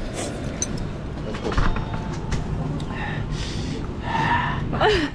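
Steady background noise of traffic and a busy roadside noodle shop, with a few light clicks. Faint voices come in about three seconds in, and a short falling vocal sound is heard just before the end.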